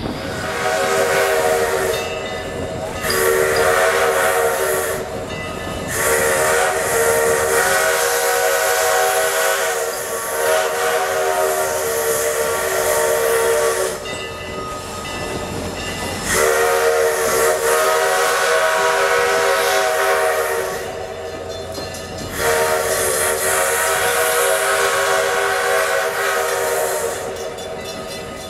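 Southern Railway 2-8-0 No. 154's steam whistle blowing several long blasts of a multi-note chord with short breaks between them: the warning sequence for a road crossing. Hissing steam fills the gaps.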